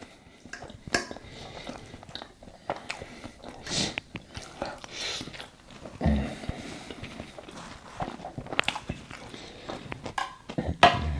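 Close-miked mukbang eating sounds: biting and chewing food, with irregular sharp mouth clicks.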